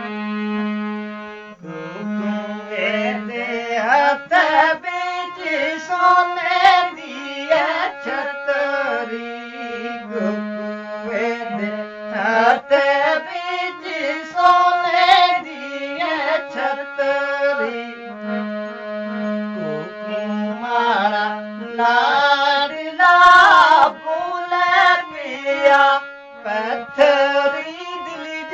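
A harmonium accompanying a voice singing a Pahari folk song. The harmonium holds a low steady note between the sung lines, near the start and again about two-thirds of the way through.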